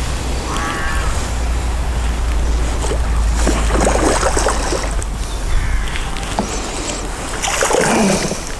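Hooked mirror carp splashing and thrashing at the surface close to the bank, in two spells about four seconds apart. Under it runs a steady rumble of wind on the microphone.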